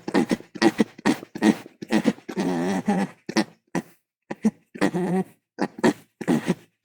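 Monster creature vocalizations from a sound effect: a rapid series of short, animal-like grunting calls, with one longer wavering call about two and a half seconds in.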